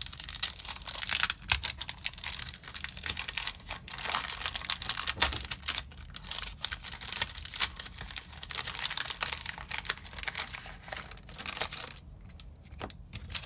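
Foil wrapper of a Yu-Gi-Oh trading-card booster pack crinkling and tearing as it is ripped open by hand, with dense crackling. The cards are then slid out and handled, and the crackling dies down near the end.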